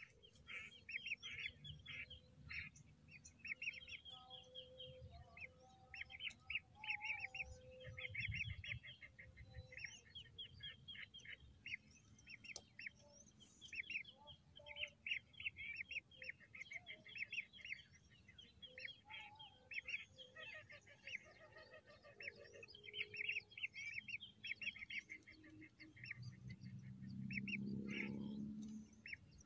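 Lesser whistling ducks calling, a dense, continuous twittering of short high whistles, call after call. A louder low droning sound swells near the end.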